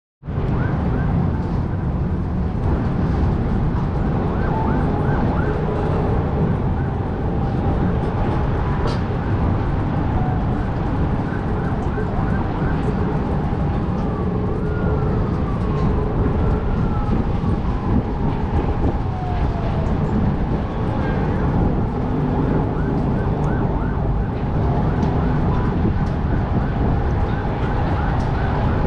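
Wind buffeting the microphone over the hum of city traffic far below, with an emergency siren wailing and yelping, its pitch sweeping up and down, strongest in the middle.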